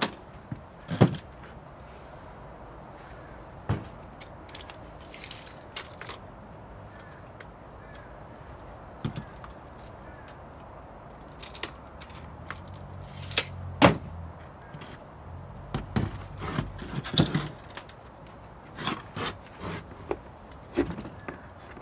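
Scattered clicks, snaps and knocks of hand tools and a stiff plastic planting pot being handled: tin snips cutting the plastic and a tape measure being used on it.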